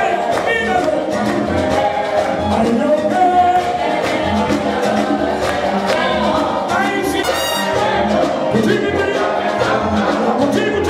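Live Cuban band music with a singer over a steady beat.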